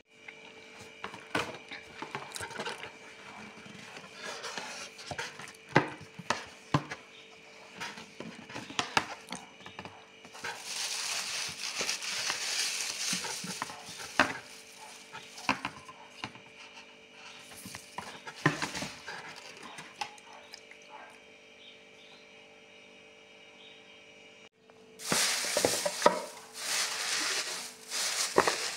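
Cardboard packaging being handled, with scattered taps and clicks, and bursts of rustling as hands dig through white shredded-paper filler, loudest near the end.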